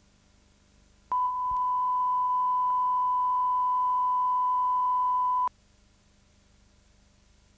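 Steady 1 kHz line-up reference tone, the test tone that accompanies colour bars at the head of a video tape. It starts about a second in, holds for about four and a half seconds, then cuts off suddenly, leaving a faint hum.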